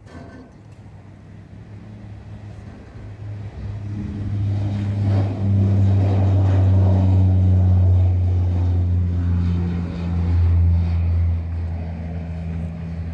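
Twin turboprop CN-235-220 transport's General Electric CT7-9C engines and propellers at high power as it lifts off and climbs out: a deep, steady propeller drone that grows louder as the aircraft passes close by, peaks, then eases off slightly as it climbs away.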